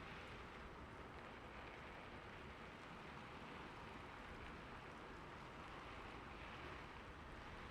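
Rain falling steadily, a soft, even hiss with no thunder.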